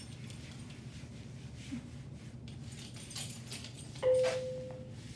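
Disinfectant wipe rubbed over a hard tabletop with faint rustling. About four seconds in it gives a sharp squeak that holds one steady tone for about a second.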